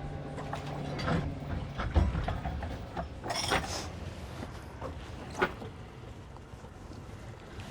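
Scattered knocks, clinks and clicks of gear being handled on a boat while a tow line is rigged, with the loudest knock about two seconds in, over a low engine hum that fades early.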